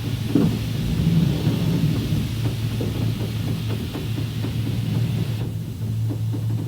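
Truck being washed: a machine's steady low hum under a hiss of spraying water, which cuts off abruptly about five seconds in, with scattered small knocks and splashes throughout.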